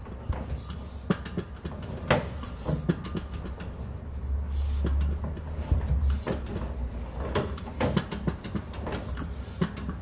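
Sewer inspection camera's push cable being fed along a cast iron drain line: irregular clicks and knocks over a low hum that swells for a second or so about four seconds in.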